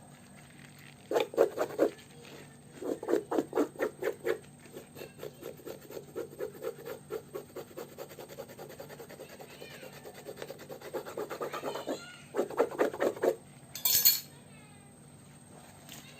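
Quick rhythmic rubbing or scraping strokes, about five a second, in several runs, loud at first, fainter in the middle, then loud again, followed by a short hiss near the end.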